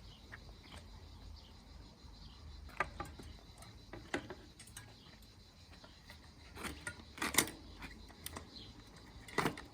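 Bicycle rear-hub parts being handled and fitted back onto the wheel: scattered metallic clicks and knocks, the loudest about seven seconds in and again near the end.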